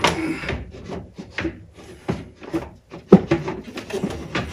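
Pinball machine's backbox speaker panel being pushed back into place by hand: a run of rubbing scrapes and a few light knocks against the cabinet, the sharpest knock about three seconds in.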